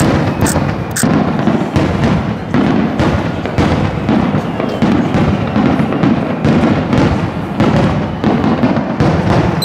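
Rapid-fire starmine barrage of aerial firework shells, with many booming bursts and crackles following hard on one another without a break.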